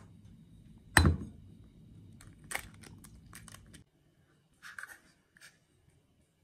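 An egg cracked on the rim of a glass bowl: a sharp knock about a second in, a lighter one about a second and a half later, then a few faint crackles as the shell is pulled apart.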